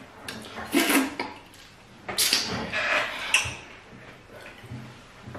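Loud mouth smacking and slurping from eating fufu in light soup, in two bursts: one about a second in and a longer one from about two to three and a half seconds in.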